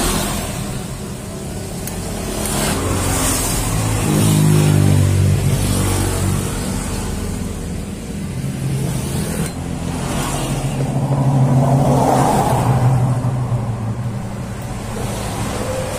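A vehicle engine running, swelling in level twice, about four seconds in and again past eleven seconds, over a steady low hum.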